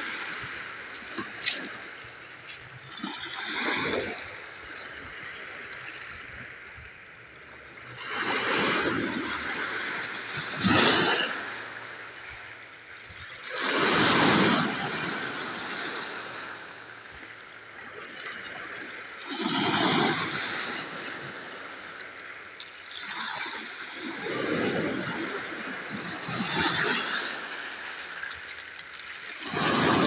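Small sea waves washing up a pebble beach in a swell of hiss every three to six seconds, then drawing back, with the pebbles clicking at the water's edge in the first few seconds.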